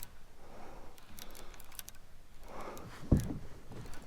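Irregular light clicking from fishing tackle, the reel and rod being worked while a hooked striped bass is played, with one dull thump about three seconds in.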